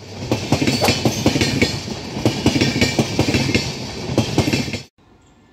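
Passenger train coaches rolling past at speed, the wheels clattering over rail joints in a fast clickety-clack of sharp clicks. The sound cuts off suddenly near the end.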